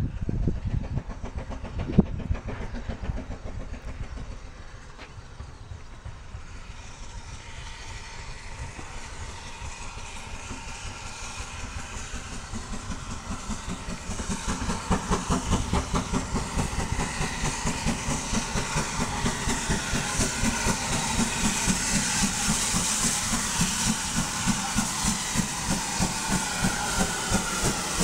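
Ex-GWR 0-6-2T steam tank engine No. 5637 drawing its coaches into the station, its sound building steadily louder with a fast regular beat and a rising hiss. A sharp knock sounds about two seconds in.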